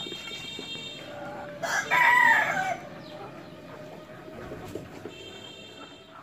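Desi chickens clucking, with a rooster crowing once about two seconds in, a call of a bit over a second that bends and falls in pitch at the end.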